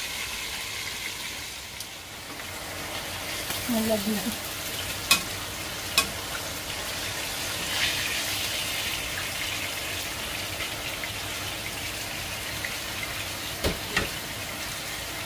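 Hot oil sizzling steadily in a wok as fried chicken pieces are lifted out with metal tongs, with a few sharp clicks of the tongs against the pan.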